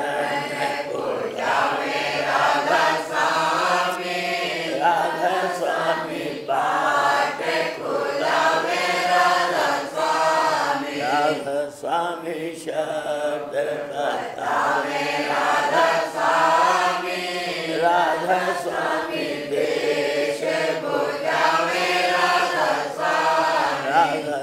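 Voices chanting a Radhasoami devotional hymn (shabd) in Hindi, in long phrases that rise and fall in pitch.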